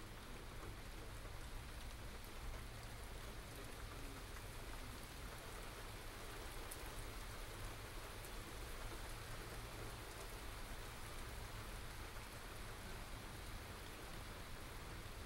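Steady rain falling during a small thunderstorm, an even hiss with a few sharper drops, over a low steady rumble. Recorded through binaural microphones.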